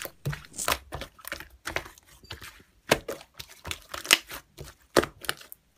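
Clear slime being squeezed and poked by hand, giving off irregular wet clicks and crackling pops a few times a second.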